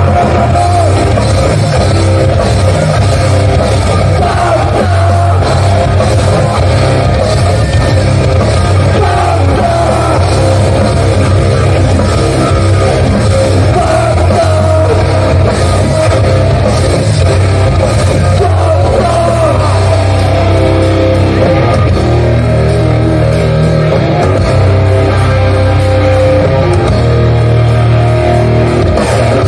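A hardcore band playing live: distorted electric guitars, bass and drums with singing, loud and unbroken, the recording crowded and overdriven.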